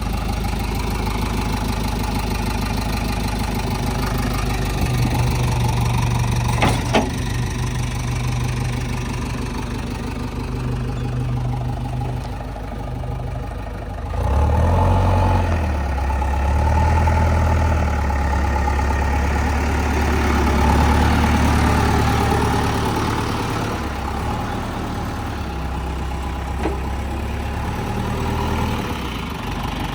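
JCB 3DX backhoe loader's diesel engine running, its pitch and strength shifting as the load changes. It grows louder and deeper about halfway through. A short knock sounds about a quarter of the way in.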